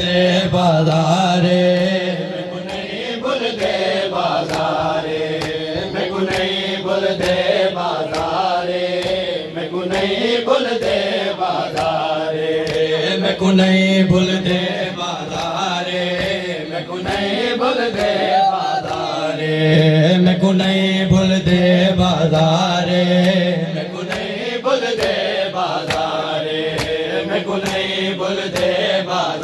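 A noha, a Shia lament for Muharram, sung by men's voices with long drawn-out notes in a chanting style, over a fairly regular beat of sharp slaps from matam, chest-beating with the hands.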